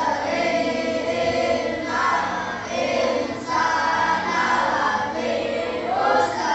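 A group of children singing together in chorus, with long held notes that change every half second or so.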